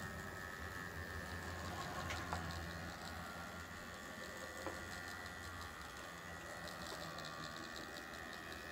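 HO-scale Athearn Genesis MP15AC model diesel locomotive running on track: a steady electric-motor hum and whine with the rolling of its wheels, and a few faint clicks.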